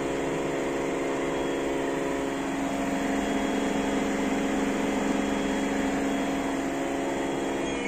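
LG F4DV509S0E washer-dryer spinning its empty drum at full spin speed, around 1400 rpm: a steady machine hum made of several steady tones over a whooshing noise.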